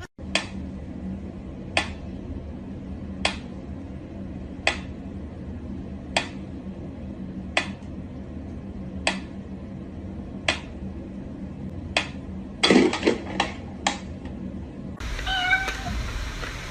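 A cat giving short, sharp calls at an even pace, about one every second and a half, over a steady low hum. Near the end it calls several times in quick succession.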